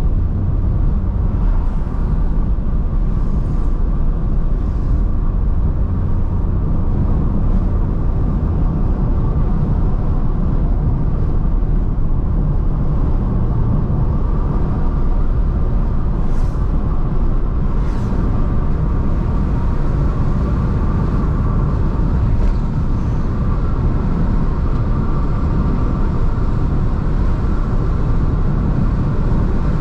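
Car driving along: steady low engine and road rumble.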